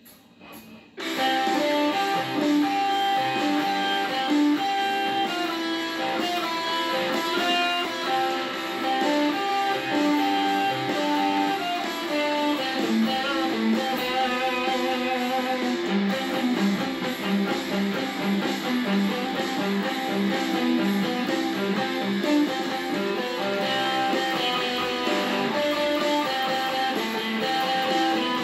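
Fender Stratocaster electric guitar played through a small combo amplifier, improvising rock lines. Playing starts about a second in and goes on without a break.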